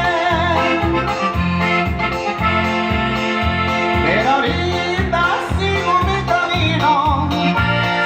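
Norteño dance music: an accordion melody over a bass pulse about twice a second, with a singing voice.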